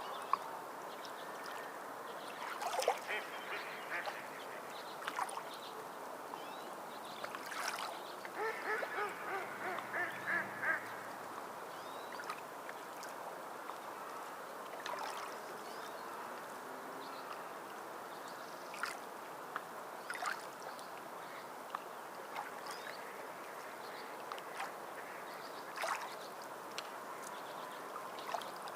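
Steady wash of water with scattered small splashes, and a bird calling in a quick run of repeated calls about eight to eleven seconds in.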